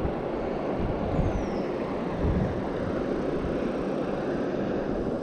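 Steady rush of water pouring through a spillway, with a few short low bumps on the microphone.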